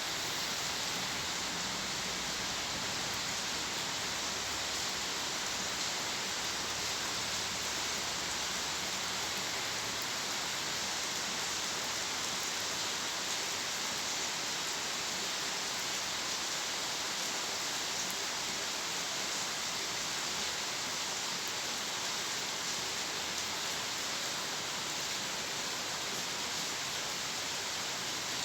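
Steady rainfall with no thunder, an even hiss of falling rain with faint drop ticks.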